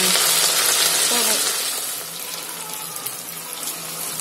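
Cut idli pieces deep-frying in hot oil in a kadai: a loud, steady sizzle from pieces just dropped in, easing off after about two seconds as the oil settles.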